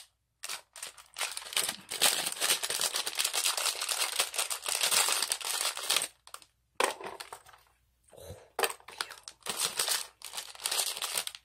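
A clear plastic bag holding small plastic toy fish crinkling as it is handled. The crinkling comes in stretches with a few short pauses, the longest about two-thirds of the way through.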